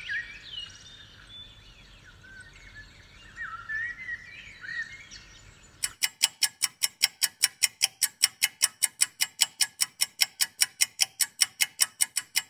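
Birds chirping outdoors with short, sliding calls for about six seconds. Then a fast, even ticking starts suddenly, like a clock, at about five ticks a second.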